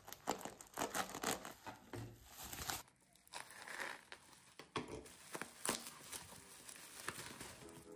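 Plastic-and-tape parcel wrapping being slit and torn open with a serrated folding knife, followed by a foam sheet and bubble wrap being pulled out. It is a run of sharp crackles, tears and crinkling rustles, with a short lull about three seconds in.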